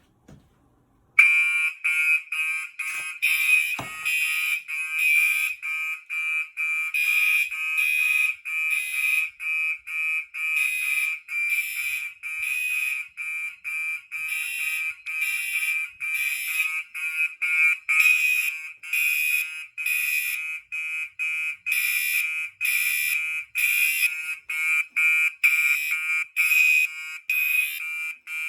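Gentex fire alarm horn strobes sounding a rapid, pulsing alarm tone, starting about a second in: a smoke detector on the fire alarm system has tripped from canned test smoke. A click or two comes just before the horns start.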